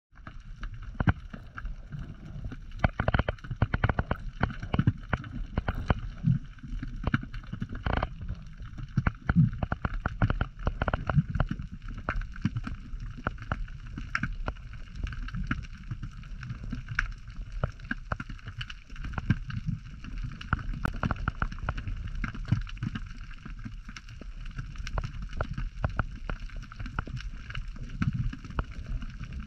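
Underwater sound picked up by a camera held underwater: a muffled, uneven rumble of moving water with frequent sharp clicks and knocks.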